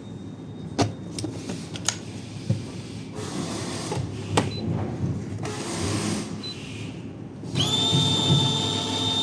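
A few clicks and knocks of handling, then about seven and a half seconds in the coffee grinder's motor starts up with a steady high whine and keeps running, on a test run after its motherboard was replaced.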